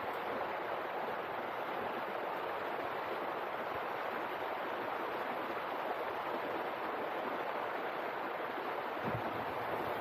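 Mountain river rushing over rocks: a steady, even rush of cold water, with a couple of soft low thumps near the end.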